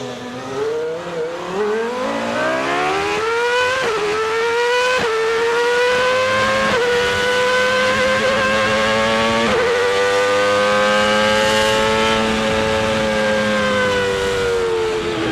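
A car engine accelerating, its pitch climbing and dropping back at several gear changes, then levelling off and easing down near the end.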